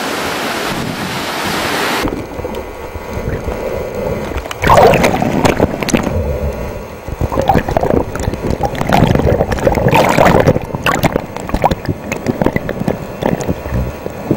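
Surf washing over a rocky shore with wind on the microphone, then, about two seconds in, a sudden change to underwater water noise: irregular sloshing, gurgling and bubbling, with clicks and splashes as water moves around the camera just under the surface.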